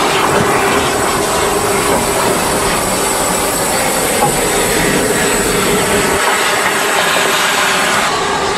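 Bulleid West Country class steam locomotive 34027 'Taw Valley' letting off steam: a loud, steady hiss with a faint steady hum underneath.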